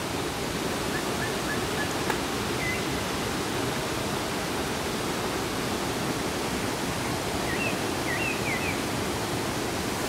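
Steady rush of a waterfall pouring into a rock pool, with a few short high chirps about a second in and again near the end.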